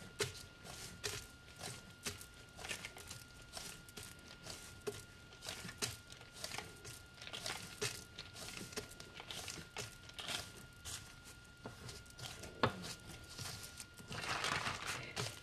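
Hands kneading and punching down a soft, sticky spelt dough on floured parchment paper: irregular soft slaps and pats with crinkling of the paper, and a denser rustle near the end. A faint steady high whine sits underneath most of it.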